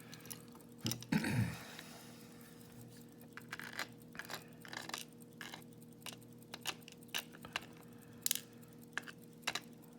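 Scattered small metallic clicks and taps of padlock pins and tools being handled while gutting an Abus 72/40 lock, with a slightly louder clatter about a second in.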